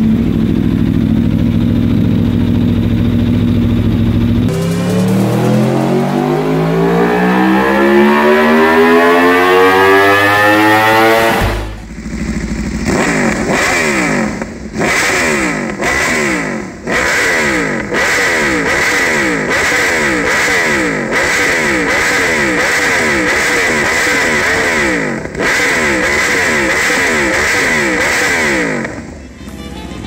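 Aprilia RSV4 1100 Factory's V4 engine idling, then revved in one long climb in pitch. After a cut, the bike with an SC Project exhaust is revved again and again in quick rising sweeps.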